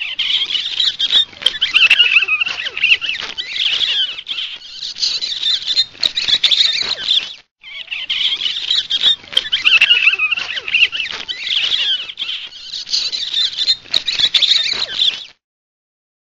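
High-pitched squeaky chattering sound effect, dense and crackly, in two runs of about seven seconds each with a short break between them, cutting off a second before the end.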